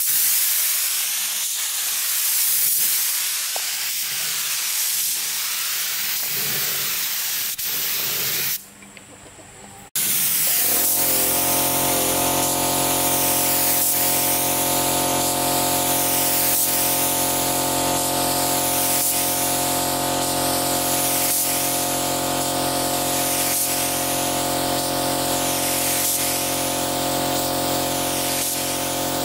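Steady spraying hiss. It drops away briefly about a third of the way in. It then resumes with a machine's steady motor hum beneath it, and the hiss swells and fades regularly about every second and a half.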